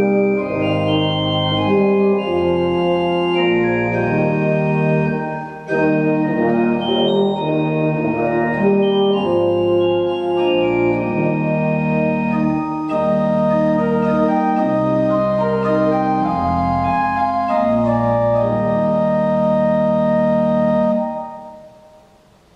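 Slow instrumental music of organ and euphonium: sustained chords changing every second or so. The music stops near the end and the last chord dies away.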